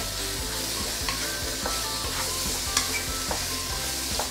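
Chicken pieces and shiitake mushrooms sizzling in hot oil in a stainless-steel wok on high heat, stirred with a wooden spatula that knocks and scrapes against the pan several times. The sharpest knock comes about three seconds in.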